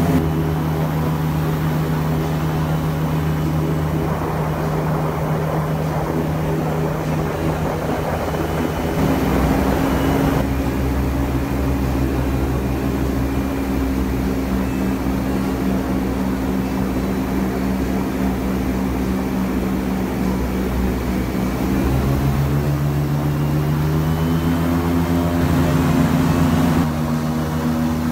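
Airboat engine and air propeller running under way. The engine speed steps up about nine seconds in, then eases off and climbs again over the last several seconds.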